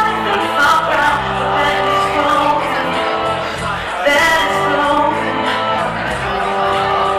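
Band music with singing: held bass notes under a vocal line that moves through sustained notes.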